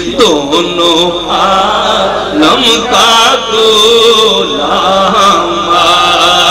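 A man's voice chanting a naat, an Urdu/Punjabi devotional poem in praise of the Prophet, solo into a microphone. He draws out long held notes that bend and glide in pitch rather than clear words.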